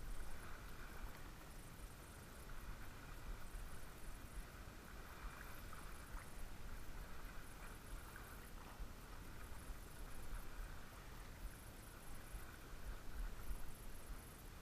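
Faint shoreline ambience: small waves lapping at the water's edge, with a low rumble of wind on the microphone.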